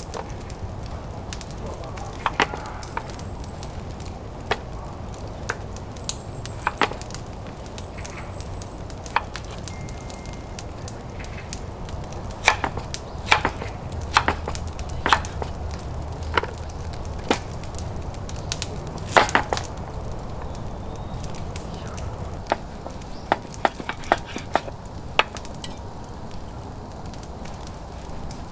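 Wood cracking and snapping in sharp, irregular clicks, roughly one or two a second, over a low steady background rumble.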